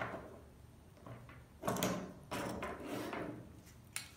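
Handling noise of a nylon dog-collar strap and its plastic shock receiver: rustling and light plastic knocks and clicks, with one sharp click about four seconds in as the plastic buckle is handled.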